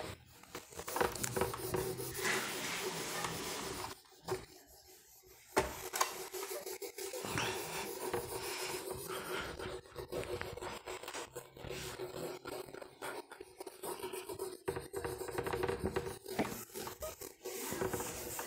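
Whiteboard duster rubbed back and forth across a whiteboard, wiping off marker writing in repeated strokes, with a short pause about four seconds in.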